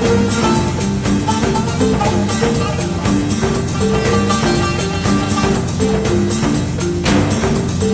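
Background music: an instrumental track with plucked-string notes over a steady percussion beat.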